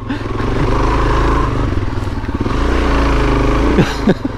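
Suzuki DRZ400S single-cylinder four-stroke engine running under throttle off-road, its pitch rising and falling as the rider works the throttle.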